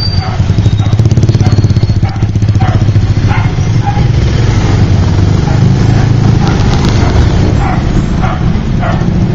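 Motorbike engine running low and steady while crawling through congested street traffic. Short sounds from the street come on top of it about every second.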